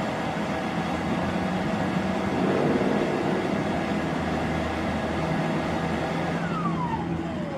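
Eurocopter AS350B-2 AStar helicopter running on the ground, with its Turbomeca Arriel turboshaft whining steadily over a low rotor and engine hum. Past six seconds in, the turbine whine falls steadily in pitch as the engine winds down.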